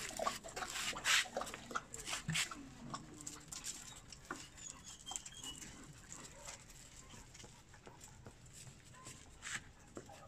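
Wirehaired Vizsla puppy and dogs playing: scuffling and quick clicks of paws on paving, busy for the first few seconds, then sparser and fainter.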